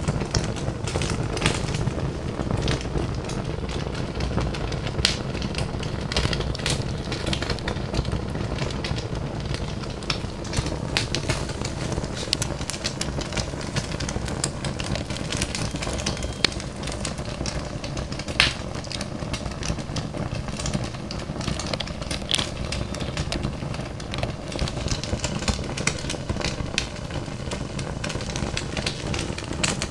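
Fire burning: a steady low rumble of flames with irregular crackles and a few sharper pops.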